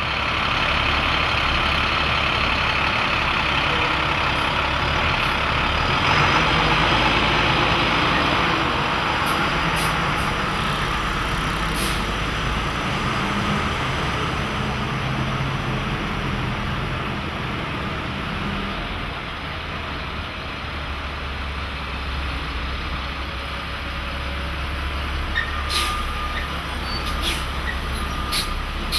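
A large truck engine running at a loading dock, with a loud air hiss in the first several seconds. Near the end come a few sharp clicks and a short steady beep.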